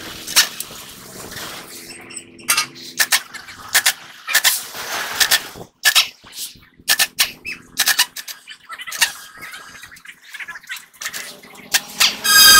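Pneumatic impact wrench working the nuts on a truck's rear wheel hub in short bursts, with sharp metal clicks and clanks between them; just before the end it runs for one longer stretch.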